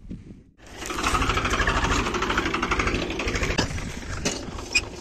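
Massey Ferguson tractor's diesel engine running close by with a rapid, even chugging; it starts abruptly under a second in and stays loud and steady.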